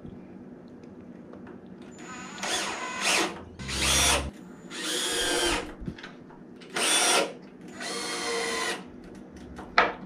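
Cordless drill run in five short bursts, its bit working into a wooden panel; the motor whines up in pitch at the start of some bursts.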